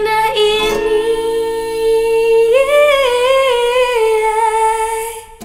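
A woman singing one long wordless note into a microphone, its pitch wavering, stepping up about halfway through and back down, over a strummed acoustic guitar chord that dies away shortly before the voice breaks off near the end.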